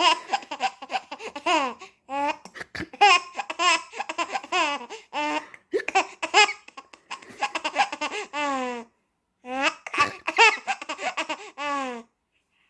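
Baby laughing, in four bouts of giggles and squeals with short pauses between them.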